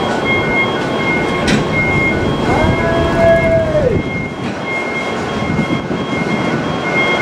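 Japanese level-crossing warning bell ringing in evenly repeated dings over the rumble of a passing train. About two and a half seconds in, a horn sounds for about a second and a half, its pitch bending up at the start and down as it stops.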